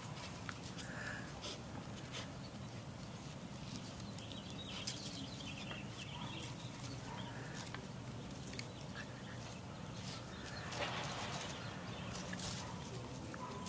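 Puppies playing and scuffling on paving and in dry leaves: scattered light clicks and scrapes, a few faint short squeaks, and a burst of leaf rustling about eleven seconds in.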